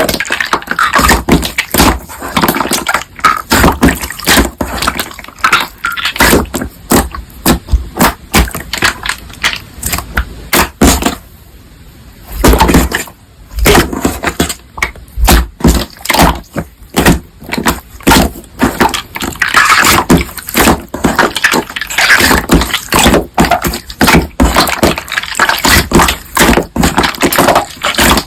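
Crunchy slime being squeezed and pressed by hand, making a dense, irregular run of crackling pops and clicks, with a short lull about eleven seconds in.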